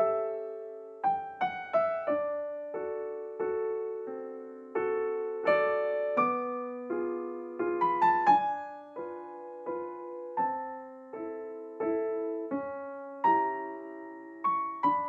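Background music: solo piano playing single notes and chords that are struck and left to ring out and fade.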